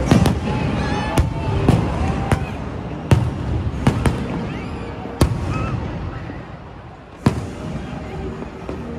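Aerial fireworks shells bursting overhead: a run of about eight sharp bangs at irregular intervals, with a gap of about two seconds before one last bang near the end.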